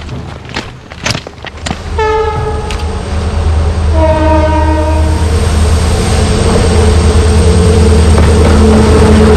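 Train on a hill railway line sounding its locomotive horn twice, a short blast then a longer one, and then rumbling closer and louder as it comes along the track. A few sharp clicks come before the horn.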